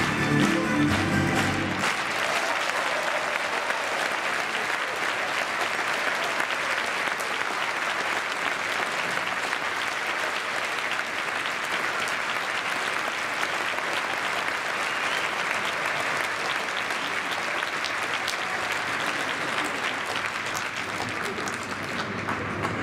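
Music ends about two seconds in. A large circus audience then applauds, a dense, steady clapping that eases off slightly near the end.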